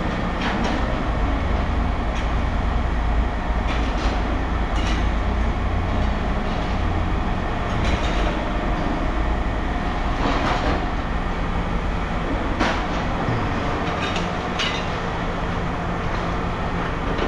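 A steady low mechanical rumble with scattered sharp metal clanks, about one every two seconds or so, as scrap metal (aluminum extrusion and pipe) is handled and unloaded.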